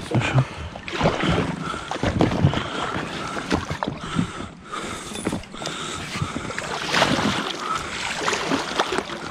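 Small boat on the river water, with splashing and knocks of the hull and gear, and a short squeak that recurs every second or so.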